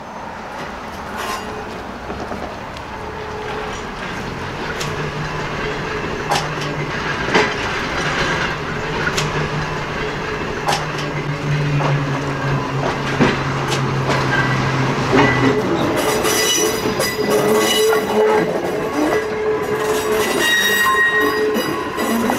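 1922 steeple-cab electric locomotive rolling slowly closer, its wheels clicking over rail joints, with a steady low hum that stops about two-thirds of the way through. As it passes on a curve the wheels squeal in several high tones.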